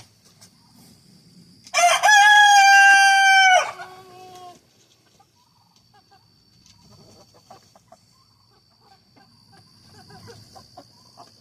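A rooster crows once, loud and close, for about two seconds, the crow dropping lower as it trails off. Softer clucking from the flock follows.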